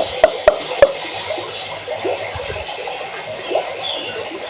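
Water bubbling and gurgling, with short rising blips throughout and four sharp clicks in the first second.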